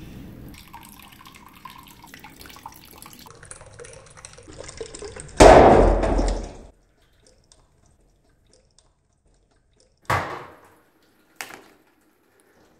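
Water trickling and dripping through a plastic marble-run funnel into a plastic cup, then a loud rushing sound lasting about a second. Two short sharp knocks follow later.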